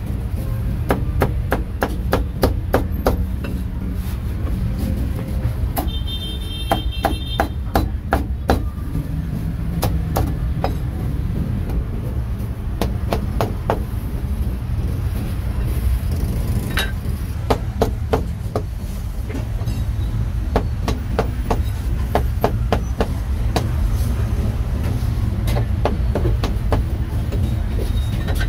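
Meat cleaver chopping roast meat: quick runs of sharp knocks broken by short pauses, over a steady low rumble.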